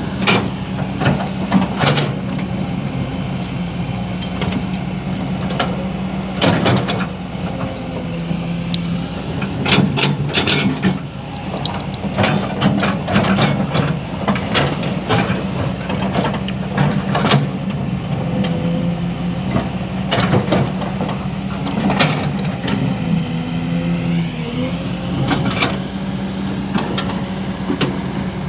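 Hydraulic excavator's diesel engine running steadily under load, with frequent sharp clanks and knocks from the digging.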